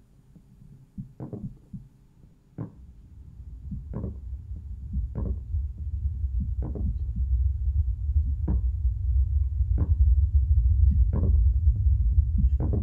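Horror-film sound design: slow, evenly spaced thuds, about one every second and a half, over a low rumbling drone that swells steadily louder.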